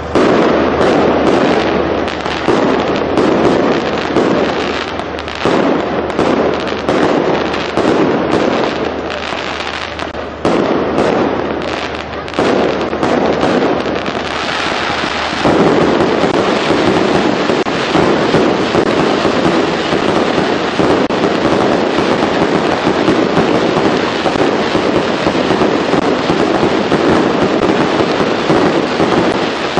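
Fireworks going off: a string of sharp bangs and pops through the first half, turning about halfway through into a dense, continuous crackling barrage.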